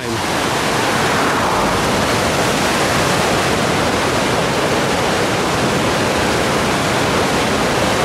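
Whitewater rapids of a big river rushing and churning over boulders: a steady, loud rush of water.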